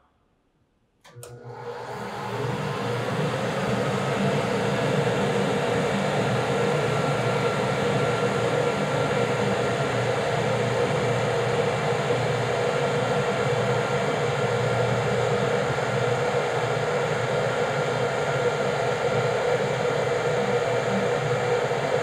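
The air-conditioning lab unit's blower switches on with a click about a second in and spins up over a second or so. It then runs steadily at its maximum setting, with a rush of air, a steady hum and a low drone.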